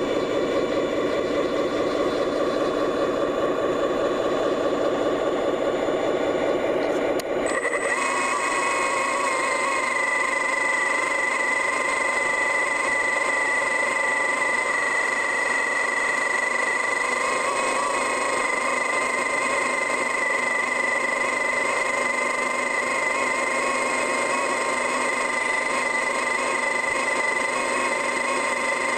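Engine and hydraulics of a tile-trenching machine running steadily. About seven seconds in, the sound shifts to a higher, steady whine.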